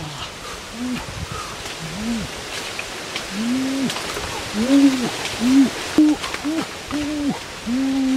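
A man's voice giving short, arching "ooh" exclamations over and over, coming closer together toward the end, with scattered crackles of footsteps in dry leaves.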